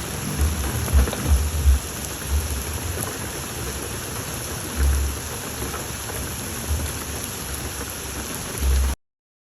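Steady rain falling, an even hiss with irregular low thumps underneath; it cuts off suddenly near the end.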